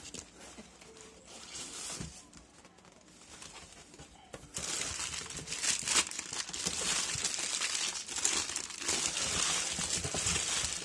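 Crumpled newspaper packing crinkling and rustling as hands pull it out of a cardboard box. It is quieter for the first four seconds or so, then becomes loud and dense.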